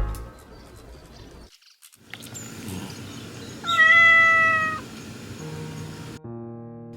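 A domestic cat meowing once, a single drawn-out call of about a second midway through, its pitch steady and dropping slightly at the end.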